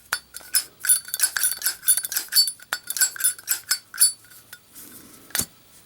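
Zippo lighter's brass case with steel insert, its hinged lid flicked open and snapped shut over and over: rapid metallic clicks with a short ring. Near the end comes a faint rush and then one sharp click, as the lighter is struck and lit.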